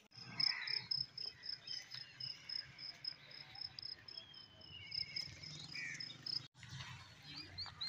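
Steady, high-pitched, rapidly pulsing insect trill like a cricket's, which cuts off suddenly about six and a half seconds in; a few short high chirps follow near the end.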